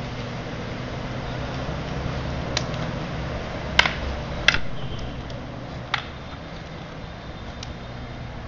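Arnis sticks clacking against each other in close-range stick-fighting drills: four short, sharp clacks, the two loudest in the middle, over a steady low hum.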